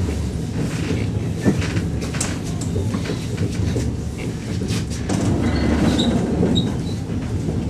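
Inside a running ER2T electric multiple unit: a steady low rumble of wheels on rails, with scattered clicks and knocks and a few brief high squeaks about six seconds in.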